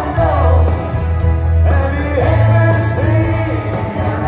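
Live rock band playing, with a singer's voice over a heavy bass and a steady drum beat, heard from the arena audience.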